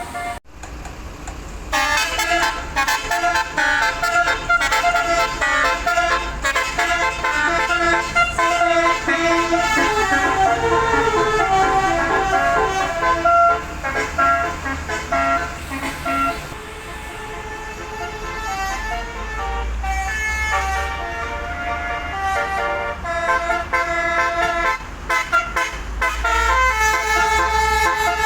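Bus telolet multi-tone air horn (Basuri) playing a fast melody of stepped notes over a low engine rumble. It starts about two seconds in, softens for a few seconds past the middle, and comes back strong near the end.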